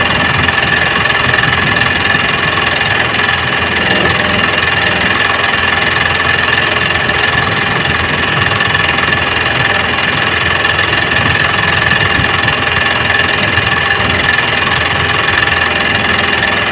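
A small engine running steadily at idle: a continuous drone with a steady high whine on top.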